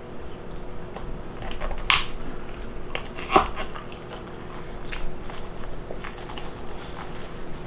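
A person chewing and biting food close to the microphone, with a few sharp mouth clicks, the clearest about two seconds and three and a half seconds in.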